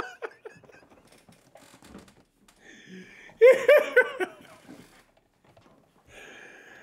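A man laughing: one short burst of several laughs about three and a half seconds in, with only faint low sounds around it.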